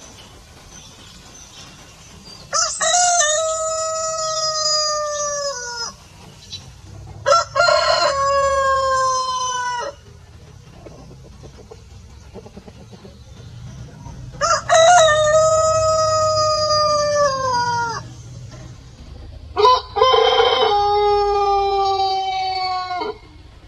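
Roosters crowing: four long cock-a-doodle-doo crows a few seconds apart, each about three to four seconds long and dropping in pitch at the end.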